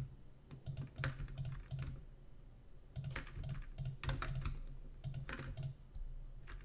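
Computer keyboard keys and mouse buttons clicking in short bursts of a few clicks each, with brief pauses between the bursts.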